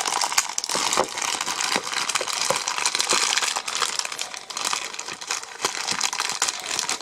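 Plastic packaging being crinkled and pulled open by hand, a continuous run of crackling and small snaps as a wrapped figure piece is unwrapped.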